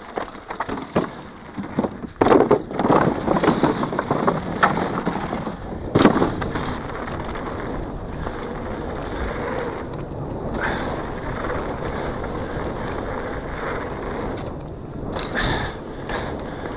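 Downhill mountain bike clattering over a rocky trail, with irregular sharp knocks and rattles and one hard knock about six seconds in. Then a steady rush of tyres rolling fast on smooth dirt.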